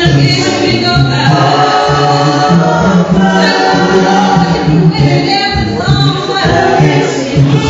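Gospel vocal group of mixed men's and women's voices singing in harmony through microphones.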